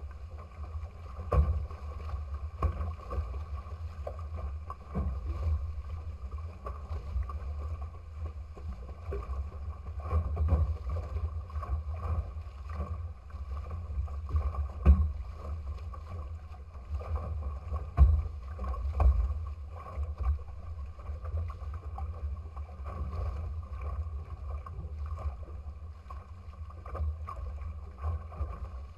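Water rushing and splashing past the hulls of a small sailing trimaran under way, over a steady low wind rumble on the microphone. There are a few louder slaps from the chop, the loudest about halfway through and again a few seconds later.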